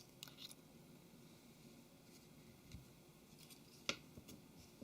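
Near silence, broken by a few faint clicks, the clearest about four seconds in, from the phone's main board and small plastic parts being handled.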